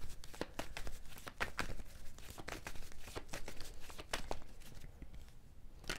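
A deck of tarot cards being shuffled by hand: an irregular run of quick papery flicks and clicks, thinning out near the end.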